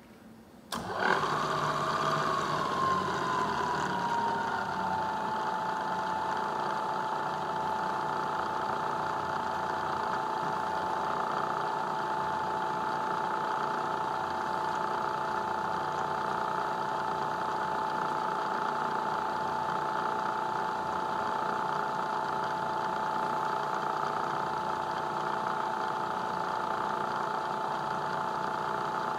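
Lagun vertical milling machine switched on about a second in, spinning a five-insert fly cutter set to about 200 rpm. Its whine drops in pitch over the first few seconds, then holds as a steady running hum and whine.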